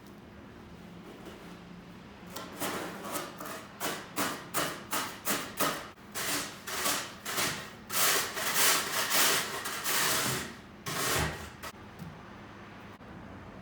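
Snow being scraped by hand in a run of repeated strokes, about two a second at first, then longer and louder ones, stopping about a second before the end.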